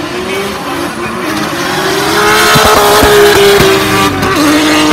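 Two drift cars sliding in tandem at high revs, their engines running hard and their rear tyres squealing and smoking. It grows louder to a peak about three seconds in, with a few sharp pops around then, and the engine note drops back a little after four seconds.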